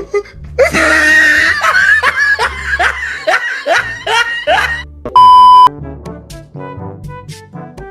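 Laughter over background music for about four seconds, then a loud, steady electronic beep lasting about half a second, followed by sparse music hits.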